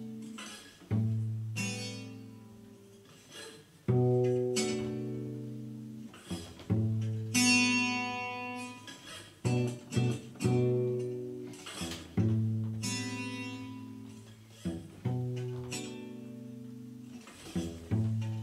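Instrumental music: plucked string notes and chords, each struck and left to ring and fade, with a low bass note under many of them.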